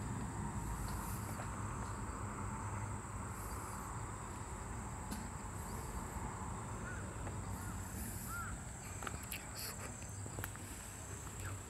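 Insects singing outdoors: a steady high-pitched trill with shriller pulses coming and going above it, over a low background rumble. A few short faint chirps come around the middle.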